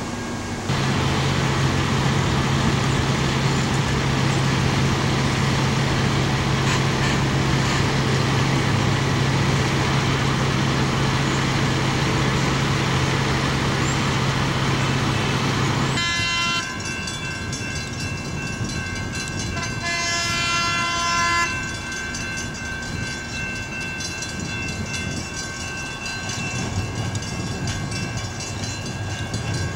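San Diego Trolley light-rail cars running by on street track: steady rolling noise with a low hum for about the first half. Then comes a steady high whine of several tones, with a short horn blast around twenty seconds in.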